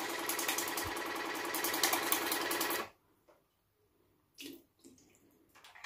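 Countertop electric water flosser running on its lower power setting: a steady buzzing pump hum with the hiss of its water jet spraying into a small plastic tank. It switches off abruptly about three seconds in, and two faint knocks follow.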